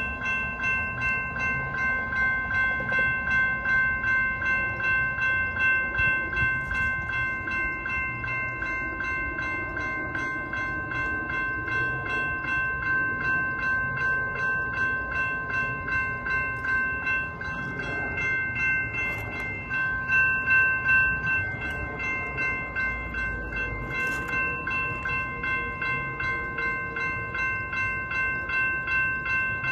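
Railroad grade-crossing bell ringing in a steady, fast run of repeated strokes, its high ringing tones unbroken throughout: the crossing is activated for an approaching train.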